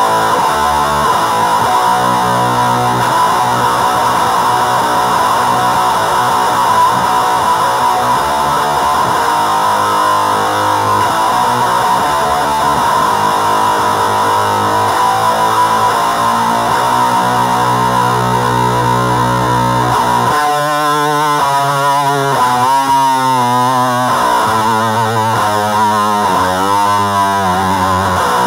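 Distorted electric guitar played through an HM-2 distortion and effects pedals into a powered speaker, with sustained chords and notes. About twenty seconds in, a warbling effect makes the pitch waver and wobble.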